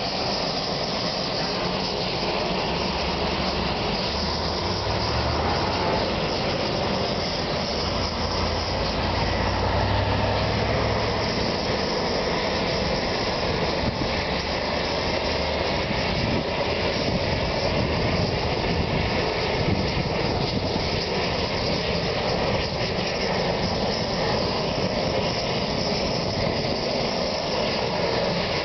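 Steady rumble of city street traffic with a low engine hum, which grows louder from about 3 to 12 seconds in.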